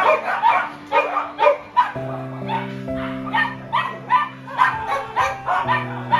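A pack of dogs barking and yipping in a rapid string of short calls, several a second, over background music with long held notes.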